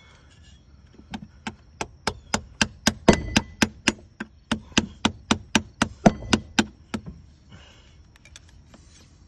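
A quick, even run of about two dozen sledgehammer blows, roughly four a second, on a pipe held against a B60 through-hull transducer to drive it out of the hull. The transducer is bedded in 5200 adhesive and won't even shake.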